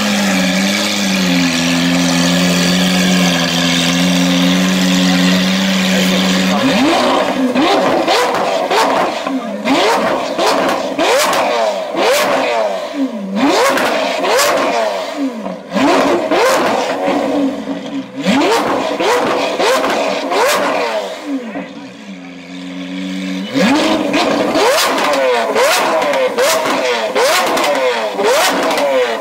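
Lamborghini Aventador's V12 idling steadily for about six seconds, then revved hard over and over, each rev a quick rising and falling sweep, with sharp exhaust pops and bangs between revs. About three-quarters of the way through it briefly settles back to idle, then the revving starts again.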